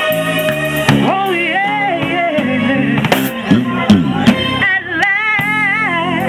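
Live soul band: a woman sings long notes with a wide vibrato over electric bass guitar and a drum kit with cymbals.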